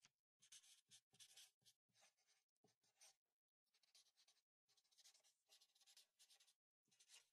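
Faint scratching of a pen tip on paper as letters are drawn: many short strokes with brief pauses between them. Near the end a felt-tip marker rubs on the paper as it fills in the letters.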